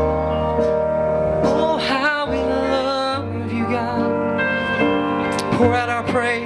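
Slow worship music: sustained keyboard chords, with a voice singing a short wavering phrase about two seconds in and again near the end.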